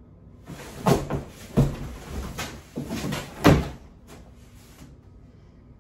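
Cardboard box flaps being shoved open and the box rustling and scraping as a person pushes up out of it. There are four or so loud bursts, the last one, about three and a half seconds in, the loudest.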